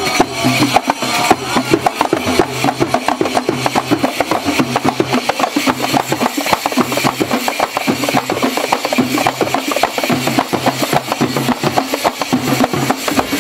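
A group of large jingled frame drums (tambourines) beaten by hand together in a fast, steady rhythm, their metal jingles ringing with every stroke.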